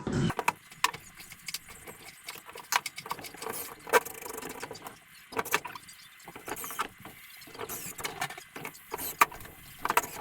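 Parts being handled and fitted together: irregular clicks and knocks with a few high squeaks.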